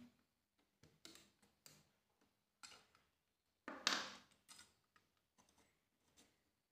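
Faint scattered ticks and taps of small repair tools being handled at a phone-repair bench, with one louder short scrape about four seconds in.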